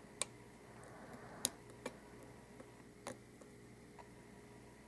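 Faint, scattered clicks of a lock pick working the pins of an Abus Titalium 83/40 padlock, about half a dozen irregular ticks, while one last pin is still holding the lock shut.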